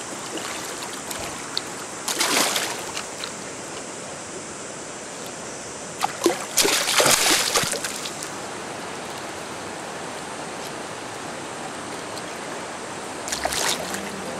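River current rushing steadily, with splashes from a hooked fish thrashing at the surface beside the boat: one about two seconds in, a longer bout around six to eight seconds in, and another near the end as it is grabbed.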